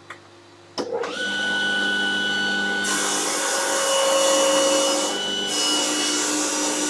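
Table saw switched on, its motor whining up to speed about a second in. The blade then rips a thin strip off a board fed by push block, adding a loud hiss of cutting over the steady motor whine.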